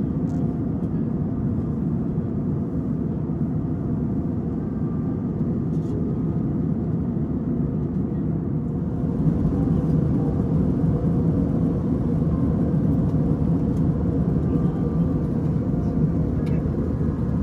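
Steady low rumble of cabin noise aboard an Airbus airliner: engine and airflow noise heard from a window seat. It gets a little louder about nine seconds in, with a few faint clicks.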